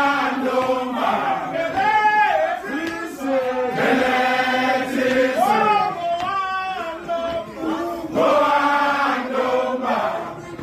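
A group of voices, mostly men, singing a Zulu chant together in sung phrases that rise and fall.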